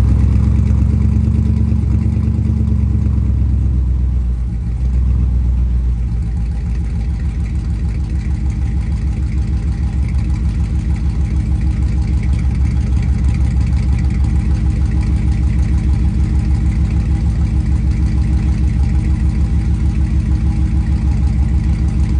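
Chevy C10 pickup's engine running through its newly built rear exhaust: faster for the first few seconds, then settling about five seconds in to a steady idle with an even exhaust pulse.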